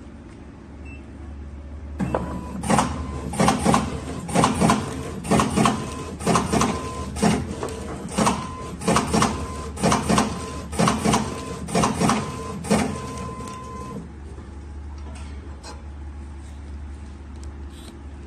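CC-330 automatic card cutter running an edge-mode cutting cycle. About two seconds in it starts up, and sharp cutting clacks come, mostly in pairs, about one pair a second over a steady whine. They stop after some twelve seconds, leaving a low hum.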